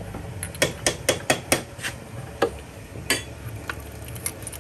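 Sharp metallic clicks and clinks of a spark plug spanner being handled and fitted: a quick run of about six in the first two seconds, then a few more spaced out.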